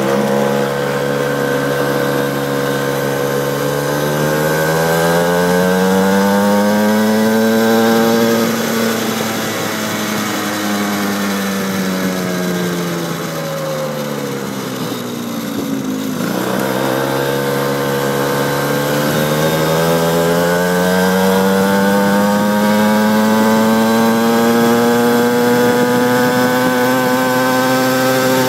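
A 50cc pit bike's small engine under way: the revs climb steadily for about eight seconds, fall away as the throttle is eased to a low point about halfway, then climb again and hold high near the end.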